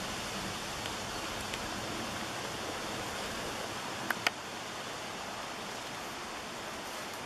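Steady rushing hiss of outdoor ambience, with two sharp clicks close together about four seconds in.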